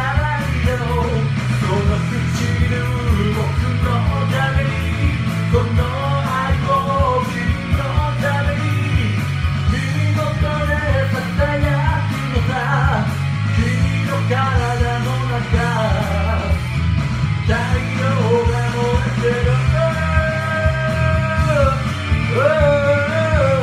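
A man singing a Japanese rock song along to a full band backing track, his voice holding long wavering notes over drums, bass and guitar.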